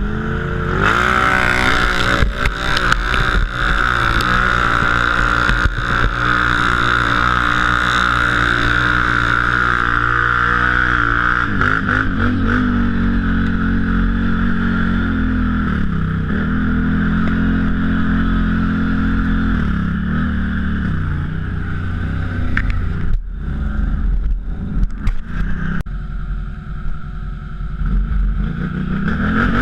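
Can-Am ATV engine revving under load off-road, its pitch repeatedly climbing, holding and dropping as the throttle works, with scattered knocks. The sound cuts out briefly in the later part, and the revs climb again near the end.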